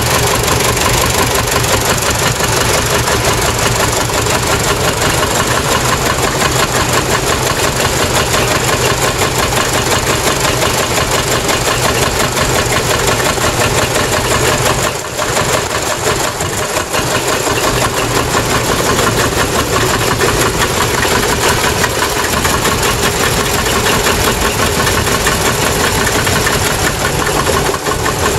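Several vintage tractor engines running at idle together, a dense, steady mechanical clatter. It dips briefly about halfway through.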